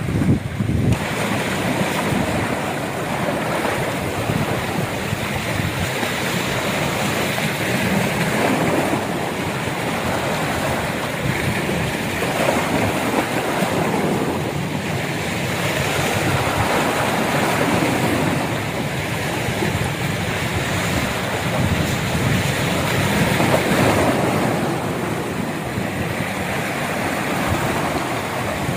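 Sea waves washing and breaking against shoreline rocks: a steady rushing surf that swells and eases every few seconds.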